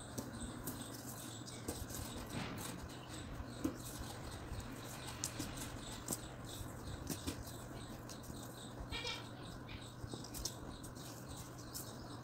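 Faint scratching and light ticking of twine being wound by hand around a wire hanger ring, over a steady low hum.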